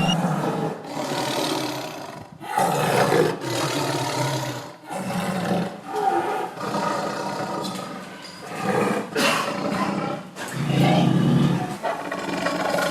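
A big cat roaring repeatedly, a string of loud roars each a second or two long with brief gaps between them.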